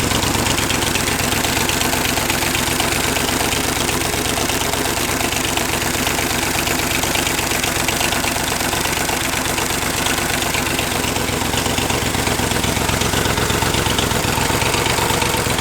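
Chevrolet 283 small-block V8 running steadily on just four cylinders, one bank with its cylinder head removed, at a rapid, even idle.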